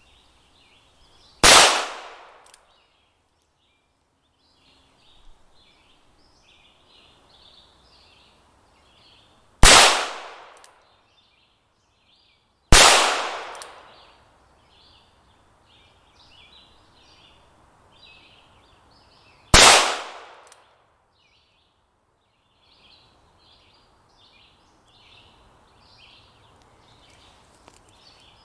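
.22 caliber pistol fired four single shots several seconds apart, each a sharp crack followed by about a second of echo.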